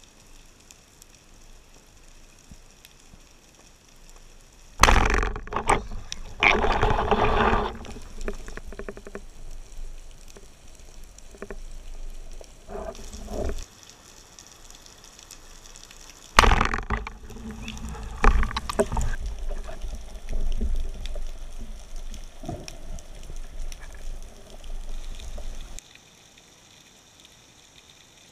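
Underwater water noise: muffled rushing and sloshing of water over the camera housing as the diver moves, in two long stretches of several seconds each that start abruptly, with quiet water hiss between them.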